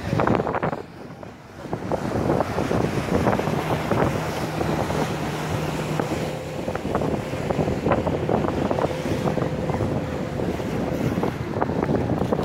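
Wind buffeting the microphone on a motorboat under way, with water rushing and splashing against the hull. The noise dips briefly about a second in.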